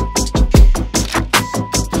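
Electronic music with a fast, driving drum beat and deep, booming kick drums.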